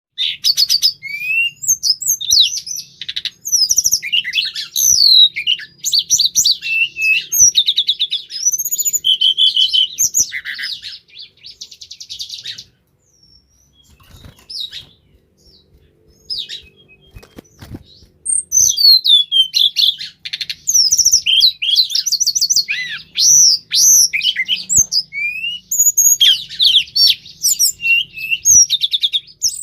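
A tledekan, a small Indonesian songbird, singing a long, rapid, varied song of high whistles, rising and falling slurs and fast trills. The song thins to scattered notes for a few seconds in the middle, then resumes at full pace.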